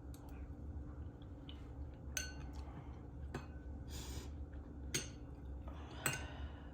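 Eating utensils clinking against a dish a few times, each clink ringing briefly, with short breathy slurping noises of someone eating soup in between, over a low steady hum.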